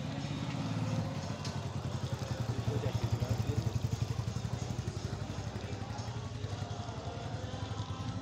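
A combustion engine running with a rapid, steady low thudding. It grows louder over the first few seconds, then eases off a little.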